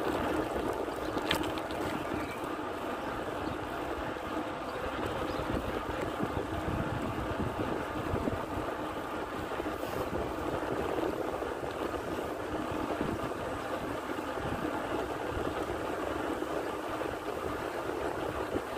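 Steady rushing wind and road noise from riding a bicycle, with wind buffeting the microphone; a faint click about a second in.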